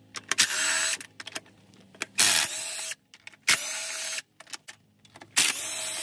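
Impact driver run in four short bursts of well under a second each, hammering the 10 mm intake manifold bolts loose one after another.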